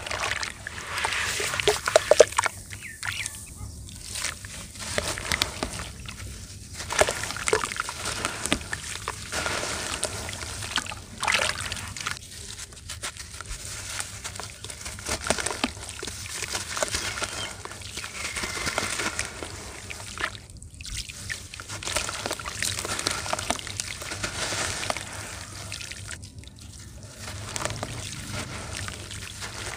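Hands swishing through a tub of watery red-dirt slurry: muddy water sloshing and trickling in irregular splashes, with a soaked lump of red dirt crumbling and dribbling back into the water.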